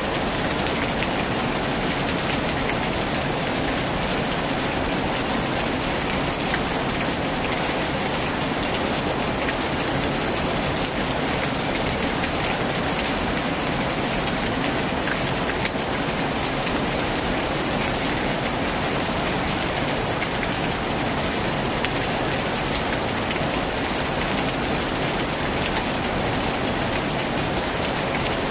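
Heavy rain falling steadily on a tin roof, a dense even hiss peppered with fine drop ticks.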